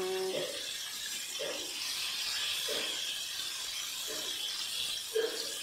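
Chicken pieces deep-frying in hot oil in a wok, a steady sizzle, with short clinks of metal tongs against the pan or mesh strainer about every second.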